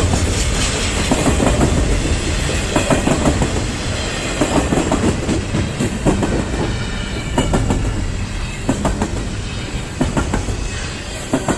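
Intermodal container freight train rolling past, a steady rumble with wheels clacking over rail joints, easing off a little near the end.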